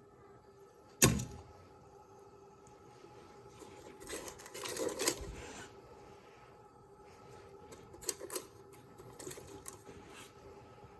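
A sharp knock about a second in, a stretch of clattering and rustling near the middle, then two quick clicks and a few light ticks, over a faint steady hum.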